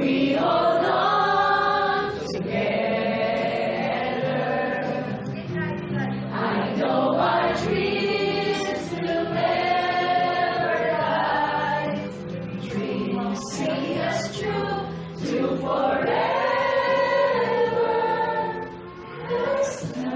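A group of people singing a song together, a choir of voices holding long notes with short breaks between phrases.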